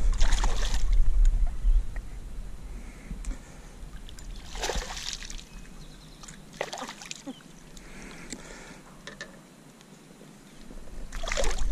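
A hooked bass splashing and thrashing at the water's surface beside the boat as it is brought in and grabbed by hand: a few short splashes several seconds apart, the last one the loudest.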